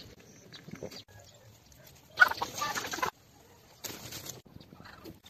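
Short, cut-together bits of farm-animal calls, with hard breaks between them. The loudest is a dense call about two seconds in that lasts about a second.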